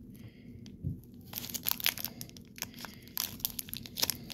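Clear plastic wrapper crinkling and tearing as it is peeled off a plug of chewing tobacco, with a quick run of sharp, irregular crackles starting about a second in.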